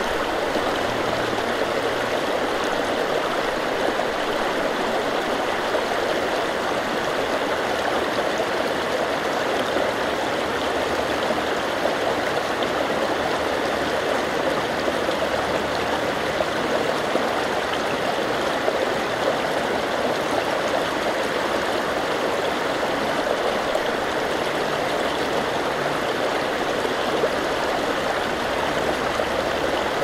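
River water running steadily over rocks, an even, unbroken rush.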